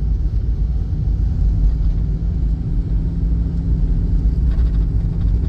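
Steady low rumble of a car being driven, heard from inside the cabin: engine and tyre noise on a wet asphalt road, with a faint steady hum above the rumble.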